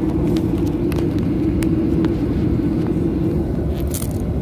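Cabin noise inside a Boeing 737 airliner taxiing: a steady low rumble from the engines and air system with a strong even hum, and a few small clicks.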